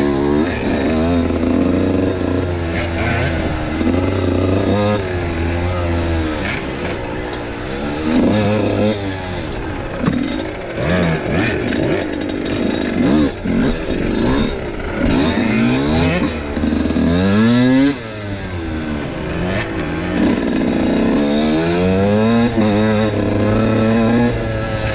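Husqvarna WR 125's 125cc two-stroke engine, an enduro motorcycle ridden on a rough trail. Its pitch climbs and drops again and again with the throttle, with short stretches at steady revs between.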